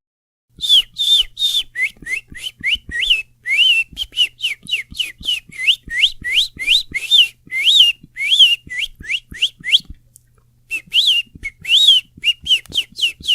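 A rapid series of short chirping whistles, about three a second, each sliding up or down in pitch with a breathy hiss. There is a short break about ten seconds in, then the chirps resume.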